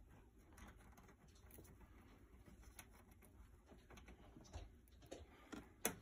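Near silence: faint scattered taps and rustles, with one sharper click near the end.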